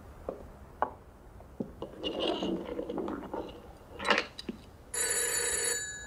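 Telephone bell ringing once, a single ring of about a second near the end, after a few soft clicks and a sharp knock about four seconds in.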